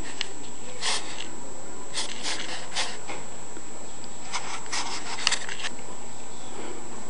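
Harbor Freight 10x18 wood lathe, converted for metal, running steadily while a cutting tool scrapes against the spinning workpiece in several short passes, clustered about two seconds in and again around five seconds in.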